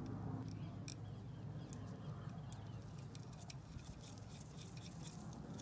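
Faint, scattered small clicks and rustling from nitrile-gloved hands handling an electric motor's plastic cooling fan and its mounting screw, over a steady low hum.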